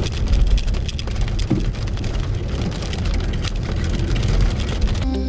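Hailstones ticking irregularly on a car's windshield over the low rumble of the car driving, heard from inside the cabin. Music starts near the end.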